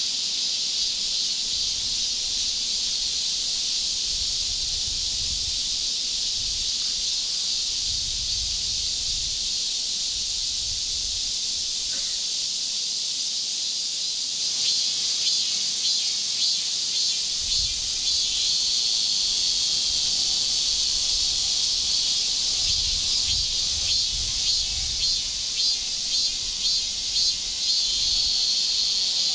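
Insects shrilling steadily in the trees, with a second, pulsing insect call joining about halfway through. Low rumbles come and go underneath.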